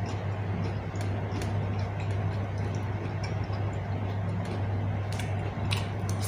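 Close-up eating sounds: quiet chewing with small wet mouth clicks, over a steady low hum that is the loudest thing throughout.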